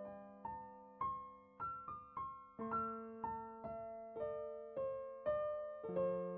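Background piano music: a slow, gentle melody of single notes, about two a second, over held bass notes.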